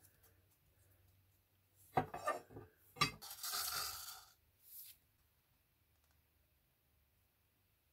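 Small containers handled on a concrete floor: a few sharp knocks and clinks about two seconds in and another knock about three seconds in, followed by about a second of scraping rustle and a short hiss.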